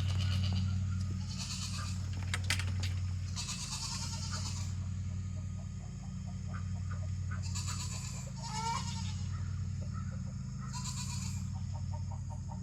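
Farm animals calling about five times, each call short and high, over a steady low hum.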